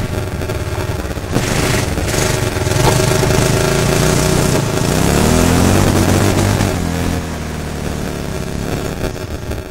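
ATV engine revving up, its pitch climbing about four to six seconds in, then easing off. A rushing noise rides over it through the first half of the rise.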